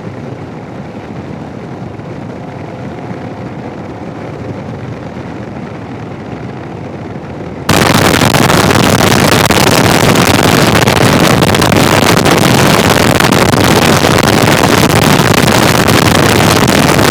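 Muffled motorcycle riding noise picked up by the helmet microphone. About seven and a half seconds in, it gives way abruptly to a very loud, steady roar of wind noise and static. This happens when a Garmin GPS instruction cuts out the Sena 10C Evo's in-helmet microphone and leaves its external microphone fully open to the wind.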